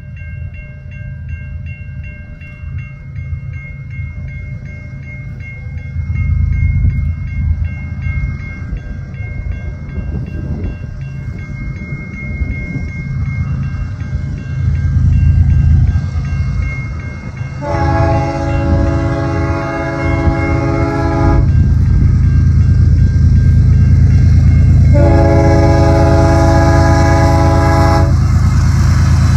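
A BNSF diesel locomotive approaching with its engine rumble growing steadily louder. It sounds two long blasts on its chord horn, the second about four seconds after the first ends, and passes close at full volume.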